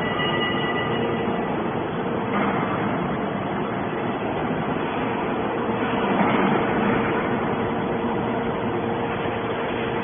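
Hydraulic scrap metal baler's power unit running: a steady mechanical hum with a constant tone, swelling slightly about six seconds in.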